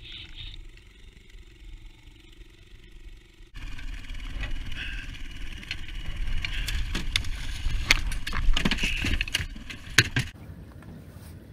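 Spinning reel being cranked as a fish is reeled up to the boat, over a low wind rumble. From about three and a half seconds in, louder scraping with many sharp knocks and clicks runs until it cuts off near the end.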